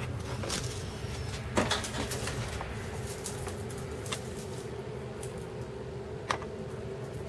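A steady low indoor hum, with a few separate light clicks and taps spread through it.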